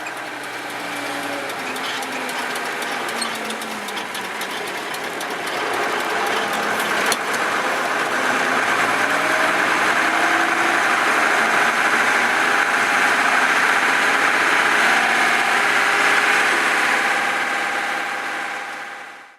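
Massey Ferguson 3095 tractor's diesel engine running under load while pulling a three-furrow plough. It grows louder over the first several seconds, with the engine note dipping and rising early on, then holds steady and fades out near the end.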